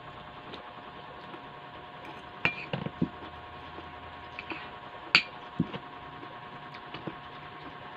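Metal spoon and fork clinking and scraping against a ceramic bowl as rice and vegetables are scooped up: a handful of sharp clinks, the loudest about five seconds in, over a steady hum.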